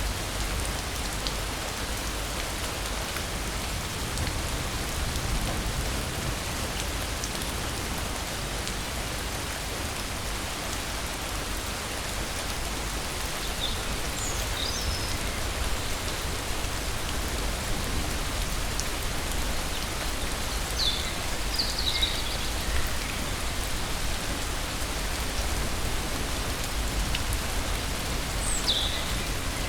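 Steady rain falling: a continuous even hiss of drops. A few brief high chirps come through in the second half.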